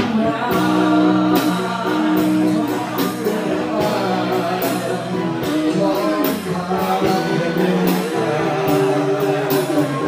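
Live band playing with a singer, drums keeping a steady beat under held melody notes.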